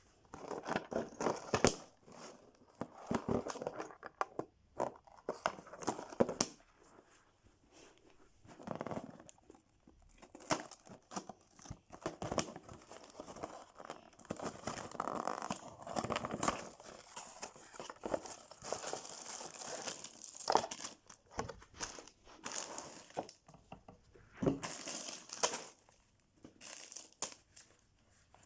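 LEGO set packaging being opened by hand: irregular tearing and crinkling of cardboard and plastic, with sharp clicks and rustles that start and stop throughout.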